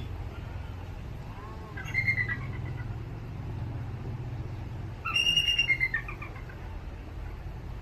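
Bald eagle calling: a short run of high, piping chattering notes about two seconds in, then a louder run about five seconds in, over a steady low rumble.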